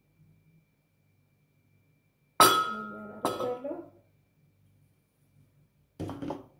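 A ceramic bowl clinks against a glass bowl: one sharp clink with a short ring, then a softer knock about a second later. Near the end comes a brief clatter of tableware.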